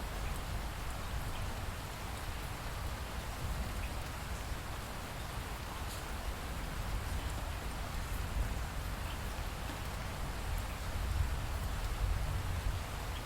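Light rain falling steadily, with scattered drips ticking, over a low rumble that swells near the end.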